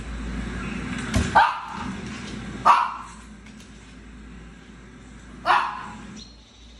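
Small dog barking: a quick double bark about a second in, another bark near three seconds, and one more about five and a half seconds in.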